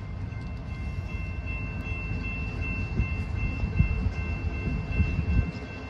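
Electronic railroad crossing bells ringing a steady, repeating high tone over the low rumble of a freight train rolling through the crossing, with a few heavier knocks in the second half.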